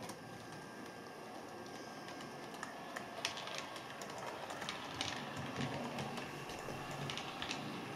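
Model Class 105 DMU running along the layout track: a steady motor whirr with many small, irregular clicks of the wheels on the track, which get louder and more frequent about three seconds in.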